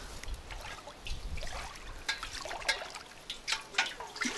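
Water splashing and trickling as a bucket is dipped into a lake and lifted, in small irregular splashes.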